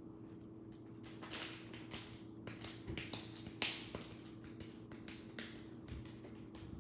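Hands rolling and patting a lump of soft clay into a ball between the palms: a run of irregular soft slaps and rubs, the loudest a little past halfway.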